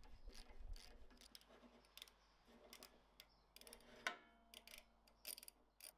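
Faint, irregular metal clicks and taps of hand tools working on a cast iron bandsaw's seized blade guide assembly. One sharper clink about four seconds in rings briefly.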